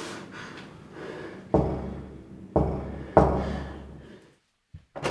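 Three heavy, booming thuds, the last two close together, each trailing off in a low rumble. The sound then drops out for a moment near the end.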